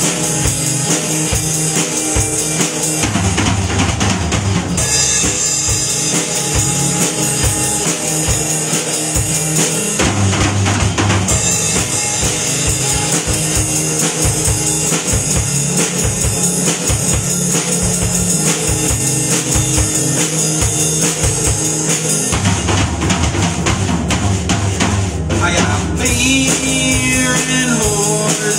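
Live rock band playing an instrumental break: electric guitar through an amp over a Peavey drum kit, with steady drumming and no vocals.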